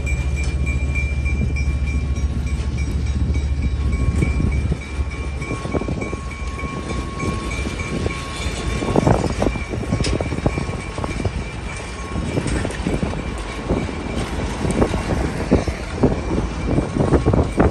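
Passenger coaches rolling past on the rails. A deep rumble drops away about five seconds in, and after that the wheels click and clatter over the rail joints, most thickly near the end, with a thin steady squeal through the first half.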